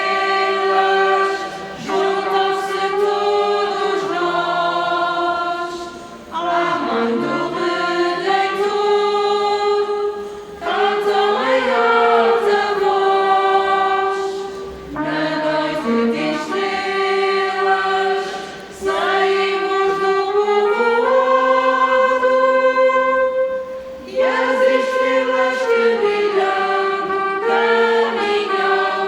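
A vocal group singing together in long held notes, in phrases of about four to five seconds with short breaks for breath between them.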